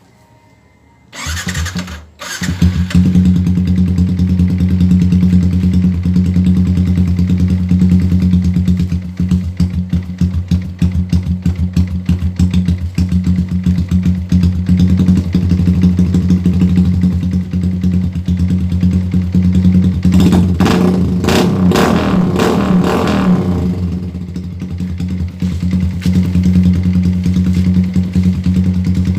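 Yamaha Sniper 150 motorcycle's single-cylinder four-stroke engine, fitted with an aftermarket exhaust, starting about a second in and settling into a steady idle. About two-thirds of the way through it is revved once and falls back to idle.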